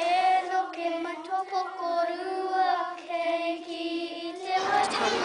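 A child singing a slow melody in long held notes that bend between pitches. The singing stops about four and a half seconds in, giving way to noisy room sound.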